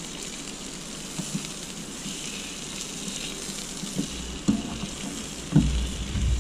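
Sausages and onions sizzling in a frying pan on a portable gas camping stove. From about two-thirds of the way in, the tongs knock and scrape against the pan a few times as the food is turned.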